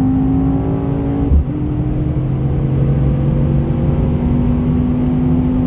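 Mercedes-AMG E 63 S's 4.0-litre V8 at full throttle, heard from inside the cabin, pulling hard at autobahn speed. About a second and a half in, the engine note breaks for an upshift from fourth to fifth gear with a short thump, then carries on steadily under load.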